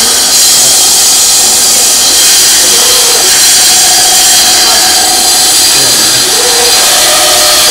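Band saw running steadily, its blade cutting through a thick block of wood.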